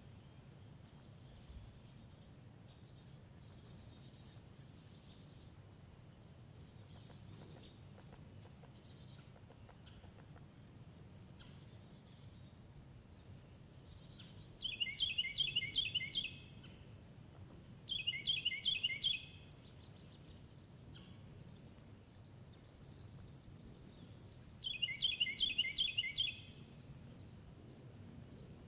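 A songbird singing three short songs, each a fast run of repeated clear notes lasting about a second and a half, the last two a few seconds apart. Fainter high chirps come before them.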